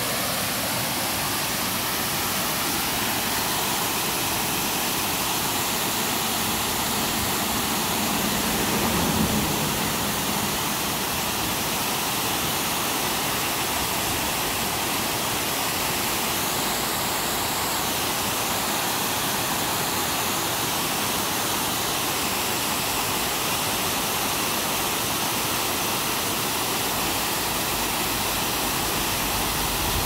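Waterfall: a steady rush of water pouring down a tiered cascade. A faint low hum swells briefly about nine seconds in.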